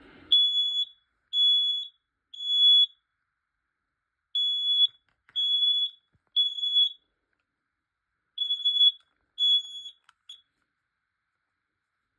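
Kidde smoke alarm sounding its high-pitched three-beep temporal alarm pattern: two full sets of three beeps, then a third set that cuts off short on its third beep.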